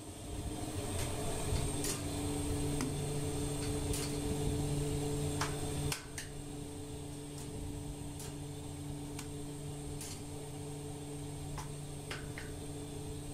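Steady electric motor hum from bakery machinery, with scattered light clicks and knocks as dough is pulled from a steel mixer bowl. The hum drops in level about six seconds in.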